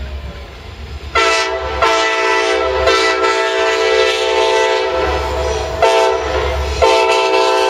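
Norfolk Southern helper diesel locomotives sounding a multi-chime air horn in a run of long blasts, cut and restarted about five times with short breaks, over the low rumble of the diesel engines. Before the horn starts about a second in, only the engine rumble is heard.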